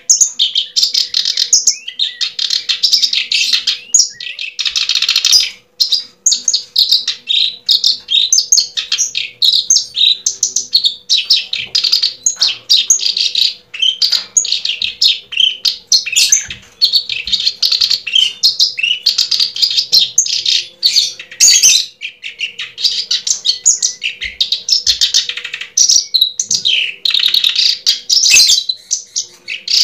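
Small songbird chirping and twittering rapidly and almost continuously, with a few brief pauses.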